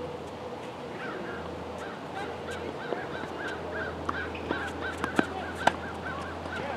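A bird calling in a fast series of short, same-pitched notes, about three a second, starting about a second in. A few sharp knocks of a tennis ball being struck and bouncing stand out near the end.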